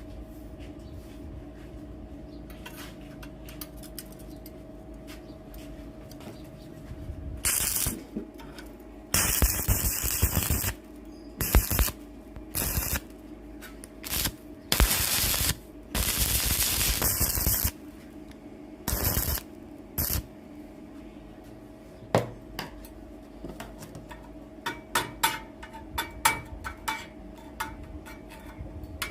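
Metalworking in a workshop over a steady machine hum: several short bursts of loud hissing noise, each one to two seconds long, then many quick light metallic ticks and taps near the end.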